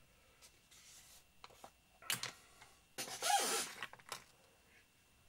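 Handling and rummaging among tools and objects on a workbench: scattered light clicks and knocks with two rustling scrapes about two and three seconds in, the second the loudest and longest.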